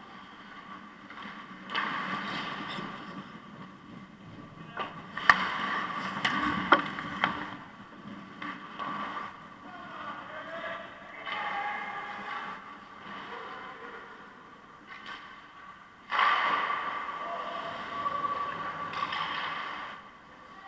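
Ice hockey play heard from behind the goal: skates scraping the ice in bursts, with two sharp clacks of stick or puck about five and seven seconds in, over a faint steady hum.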